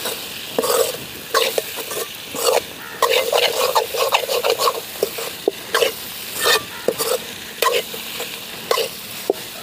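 Metal spoon scraping and stirring diced papaya fry around a metal pot in repeated, irregular strokes, with the food sizzling on the fire underneath.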